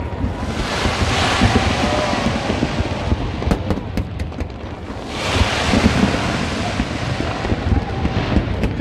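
Aerial fireworks bursting in quick succession: a continuous rumble and crackle that swells twice, with several sharp cracks around the middle.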